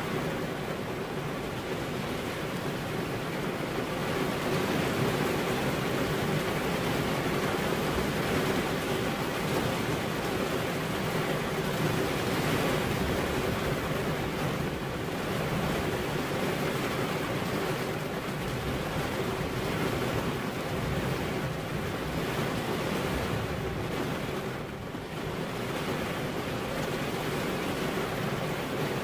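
Heavy rain falling steadily, a dense, even rush of noise.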